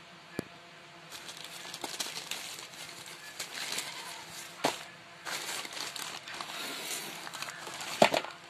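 Plastic courier bag and bubble wrap rustling and crinkling as a boxed power bank is pulled out by hand, with a few sharp knocks, the loudest near the end.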